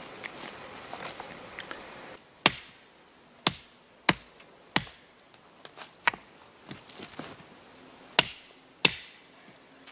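Puma White Hunter fixed-blade knife chopping into a thin wooden stick on a stump: about seven sharp, separate chops, irregularly spaced, starting a little over two seconds in. The first two seconds hold soft handling rustle.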